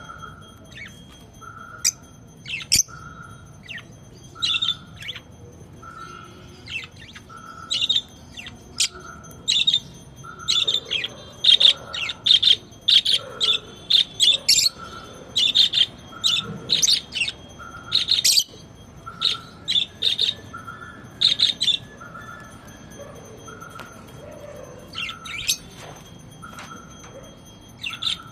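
Small pet parrots (love birds) chirping in quick, sharp bursts, busiest in the middle stretch. Beneath them a soft, even note repeats about once a second.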